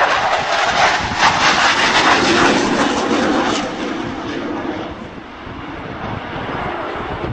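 Jet noise from a de Havilland Sea Vixen's twin Rolls-Royce Avon turbojets as it flies past overhead. It is loudest in the first three seconds or so, then fades as the aircraft draws away.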